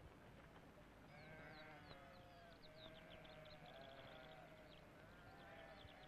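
Ewe lambs bleating faintly, several wavering calls overlapping, from about a second in until near the end.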